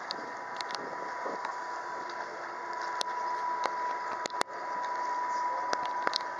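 Waterfront ambience beside a moored boat: a steady wash of outdoor noise with a thin, continuous whine and a few sharp clicks.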